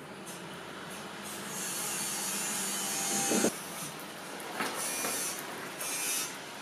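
Paintbrush bristles scrubbing and dabbing thick paint into the deep carvings of a mirror frame, a scratchy rasp in several strokes, with a brief louder scrape about three and a half seconds in.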